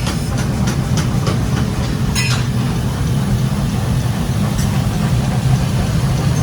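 Workshop machinery running with a steady low hum, and a few light clicks of metal on top.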